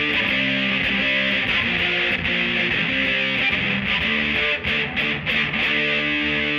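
Electric guitar strumming chords through a Bugera V22 tube amp with a 1960 Rola Alnico 5 12-inch speaker, the chords changing every half second or so, with a few short breaks about five seconds in.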